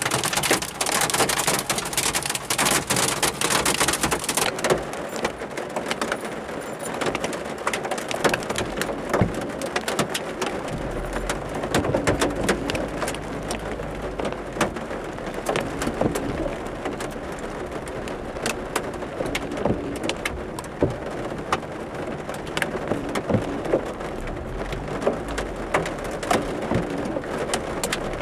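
Heavy rain drumming on a car's roof and windscreen, heard from inside the cabin as a dense patter of individual drop impacts. It hisses harder for the first few seconds, then settles into a steadier patter.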